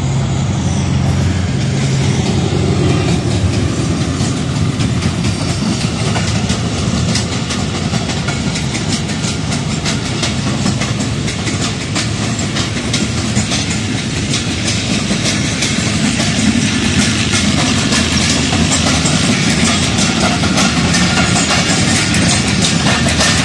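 Passenger train coaches rolling past at speed, the wheels clattering rapidly and steadily over the rail joints. In the first few seconds the low engine drone of the ZCU-20 diesel locomotive hauling the train is heard, fading as it draws away.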